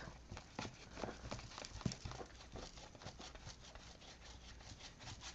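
Faint, irregular scratching and small taps of a tool being worked over an art-journal page while a thin gesso whitewash is applied.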